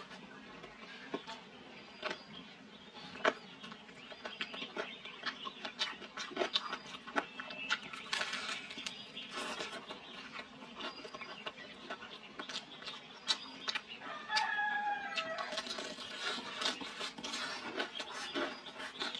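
Close-up chewing and crunching of a crispy fried chicken leg, with sharp crackles of the crust throughout. A rooster crows in the background about fourteen seconds in.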